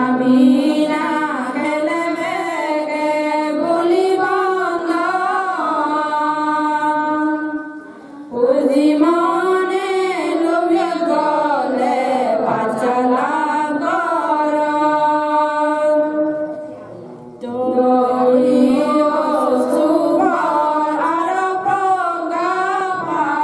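A group of women singing a Buddhist devotional chant, a slow wavering melody in three long phrases with brief breaks between them.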